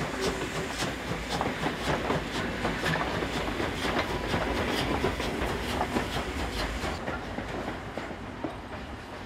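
Henschel-built 1943 Class 52 2-10-0 steam locomotive running past, its wheels clattering over the rail joints in a steady rhythm with a low rumble. The sound fades about seven seconds in as the train moves away.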